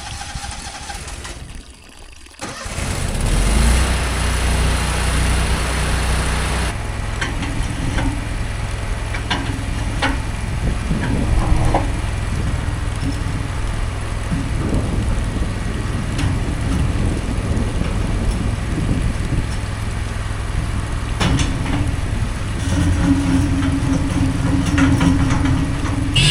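An engine starts about two and a half seconds in and then runs steadily, with a few sharp knocks over it.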